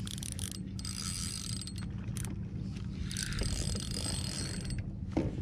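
Shimano SLX DC baitcasting reel whirring in two spells of about a second and a half each, the second starting about three seconds in.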